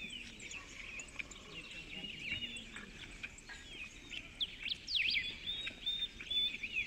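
Small birds chirping: many quick calls sliding up and down in pitch, busiest around five seconds in.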